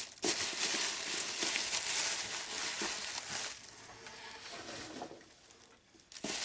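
Paper packaging rustling and crinkling as it is handled and unwrapped, dying away after about three and a half seconds.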